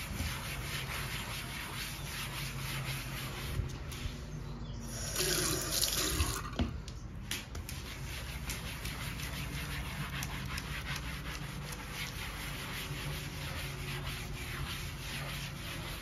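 A scrub brush scrubbing a wet, foamy kitchen countertop coated with cream cleaner: a steady scratchy rasp made of many quick strokes. About five seconds in, a louder rushing noise lasts about two seconds.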